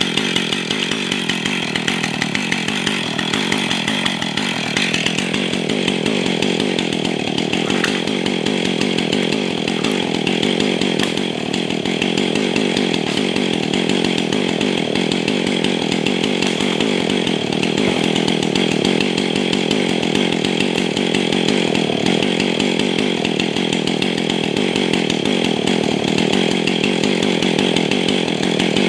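Husqvarna 445 two-stroke chainsaw, fitted with a new bar, running steadily while cutting small trees.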